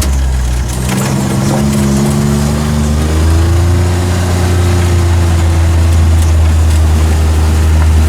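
John Deere Gator 825M utility vehicle's engine running steadily while driving, its note dipping briefly about a second in and picking back up.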